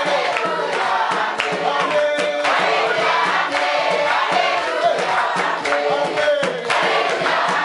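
A large group of men, women and children singing a song together in chorus, with hand clapping.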